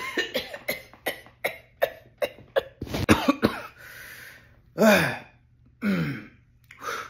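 A man coughing hard: a fast run of short hacking coughs, about three a second, then a breathy gasp and two longer coughs that fall in pitch, with one more cough near the end.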